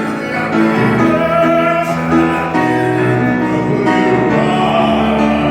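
A church congregation singing a hymn with piano accompaniment, the voices holding long notes.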